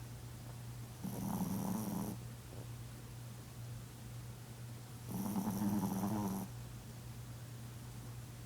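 Chihuahua snoring in her sleep: two loud snores about four seconds apart, each lasting about a second, over a steady low hum.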